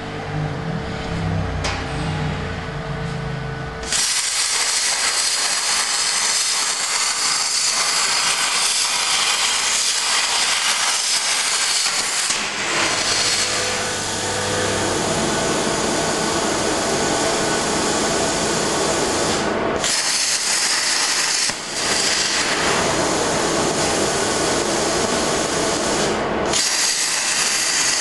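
CNC plasma cutter's arc strikes about four seconds in and cuts sheet metal with a loud, even hiss, breaking off briefly a few times. Before the arc starts there is a lower, steady machine hum.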